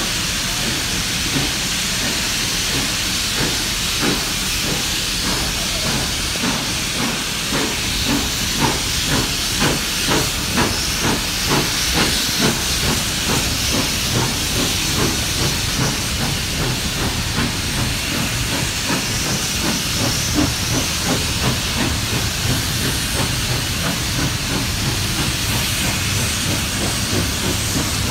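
A steam locomotive hissing steadily as its train moves slowly. Through the middle a regular beat of pulses, nearly two a second, rises and then fades back into the hiss.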